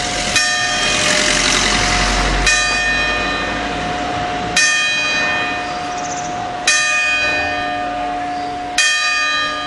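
A single church bell struck slowly and evenly, five strokes about two seconds apart, each on the same note and ringing on into the next: the tower clock's bell striking the hour.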